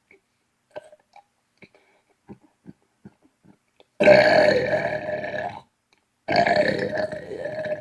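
Two long, loud burps, each about a second and a half, with a wavering pitch, preceded by a few faint mouth clicks.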